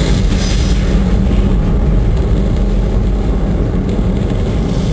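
Static test firing of a Saturn V first stage, its five F-1 rocket engines burning together with a loud, steady low rumble.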